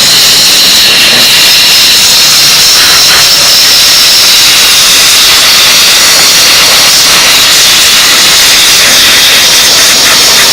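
Steam cleaner nozzle jetting steam at about 100 psi onto a dirty motorcycle, a loud steady hiss as the dirt is blasted off.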